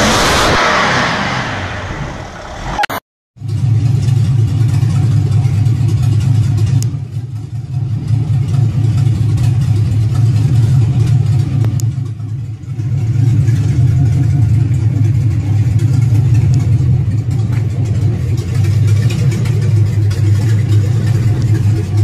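Chevy small-block V8 running steadily with a deep, even low drone, easing off briefly twice. It is preceded in the first few seconds by another engine's rev dying away before a sudden cut.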